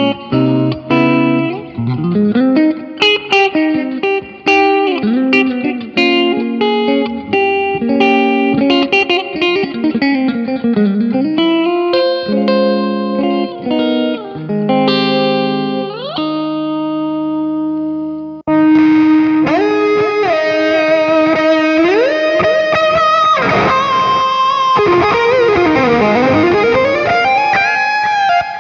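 Electric guitar played through an M-Vave Tank-G multi-effects pedal: a mor lam-style single-note lead line with many slides up and down the neck. About two-thirds of the way through, the tone switches suddenly to a brighter, louder preset.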